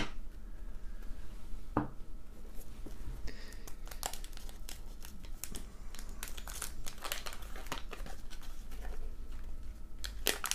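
Paper wax-pack wrapper of a 1991 Fleer basketball card pack crinkled and torn open by hand, in crackling bursts from about four seconds in. Near the start, a couple of knocks as a stack of cards is tapped square against the table.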